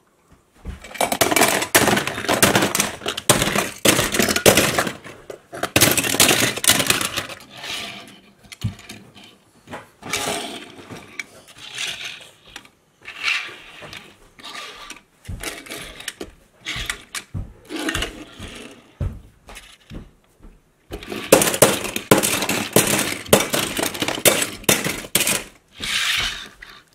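Die-cast metal toy cars clattering against one another and the plastic bin as a hand rummages through them: dense runs of rattling clicks and knocks, with single clicks between.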